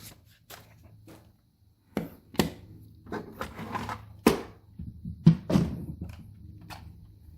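Hard plastic parts of a DX Cyclone Riser toy belt being handled, giving about ten irregular clicks and knocks, the loudest a little after four seconds and just after five seconds in.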